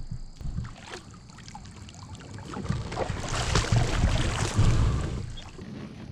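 A few light knocks of gear in a kayak, then a rush of wind across the microphone that swells about halfway through and dies away near the end.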